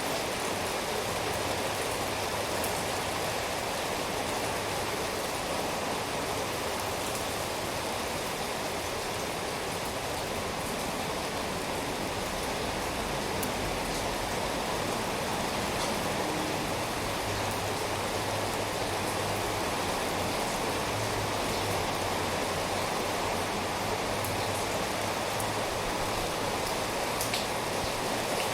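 Steady rain falling, an even hiss of rain on a surface with a few faint drop ticks.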